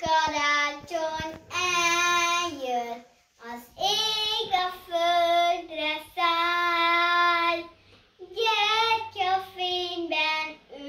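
A young girl singing a Hungarian Christmas song solo and unaccompanied, in long held notes, with short breaks for breath about three and eight seconds in.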